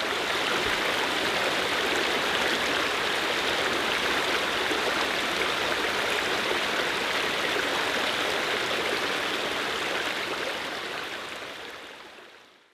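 Stream water running steadily, then fading away near the end.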